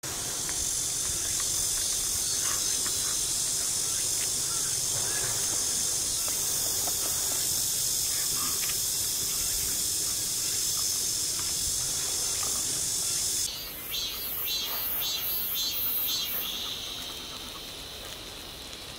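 Insects buzzing in a loud, continuous high-pitched drone. About thirteen seconds in it changes to a pulsing song of about three beats a second, which gives way near the end to a fainter steady buzz.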